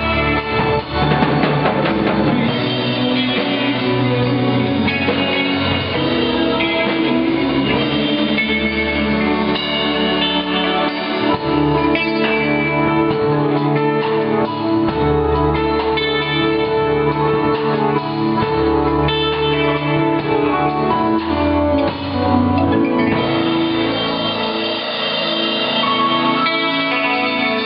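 Live rock band playing a song at a sound check, with guitar to the fore over bass and drums.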